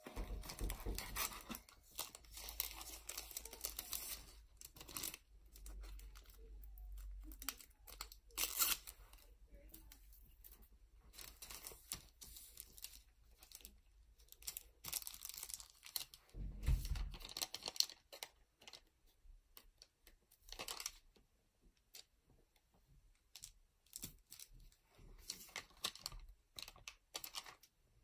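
Clear plastic bag crinkling and rustling on and off as a booster pack is slid in and handled, with the ripping peel of a seal sticker pulled from its backing sheet.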